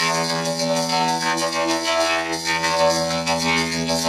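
Intro music run through a robot voice effect: a steady, buzzing drone of many fixed-pitch tones with a constant low hum beneath.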